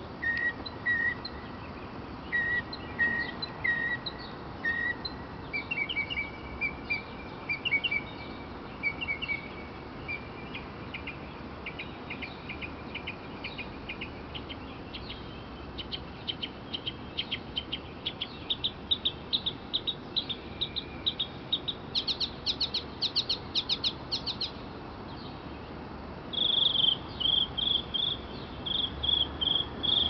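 Northern mockingbird singing a long, varied song, repeating each phrase several times before switching to the next. It moves from clear whistled notes to slurred phrases, then fast trills and a buzzy rattle, and ends in louder, higher notes.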